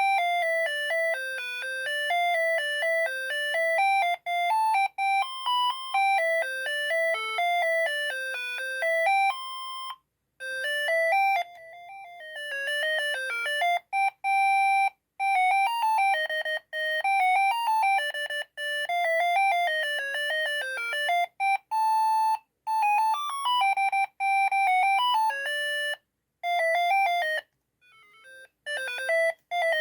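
Siemens ME45 mobile phone playing its built-in ringtones one after another: bright, beeping melodies sounded one note at a time, with short silent breaks where one tune ends and the next begins.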